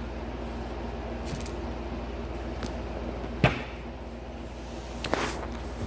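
Stones being handled and set down: a single sharp knock about halfway through and a softer clatter near the end, over a steady low electrical hum.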